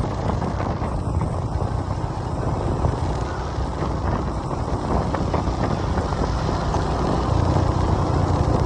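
Motorcycle running steadily along a road, heard from the pillion seat, with a continuous low rumble and wind noise on the microphone.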